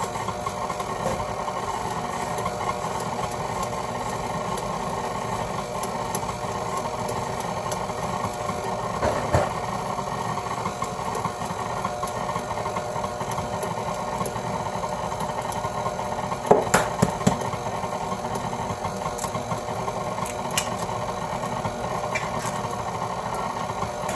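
KitchenAid Artisan stand mixer running steadily, its flat beater turning through creamed butter, sugar and egg in a steel bowl. A sharp knock sounds about nine seconds in, and a quick run of three or four knocks comes a little after halfway.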